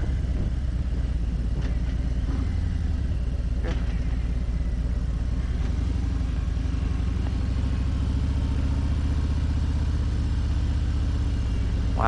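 Harley-Davidson touring motorcycle's V-twin engine running steadily while riding, a low even rumble heard through a helmet intercom microphone.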